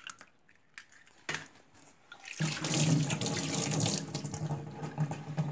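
A steady rush of running water, such as a tap running, starts about two seconds in after a nearly quiet start broken by one light knock.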